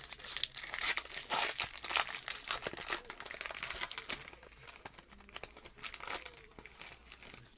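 Foil wrapper of a Certified Football trading-card pack crinkling and tearing as it is ripped open by hand. The crinkling is thickest for the first three seconds, then thins to lighter rustles as the wrapper is peeled off the cards.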